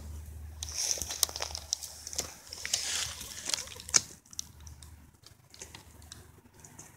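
A hen pecking and tearing at a frog among weeds: a quick run of sharp clicks and rustling through the first half, the loudest click about four seconds in, then only a few scattered clicks.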